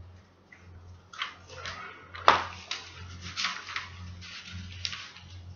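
Sheets of pattern paper rustling and crinkling as they are handled, unfolded and flattened, with one sharp tap a little over two seconds in. A faint low hum runs underneath.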